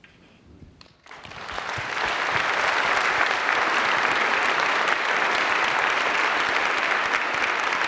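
Large audience applauding, starting about a second in, building quickly and then holding steady.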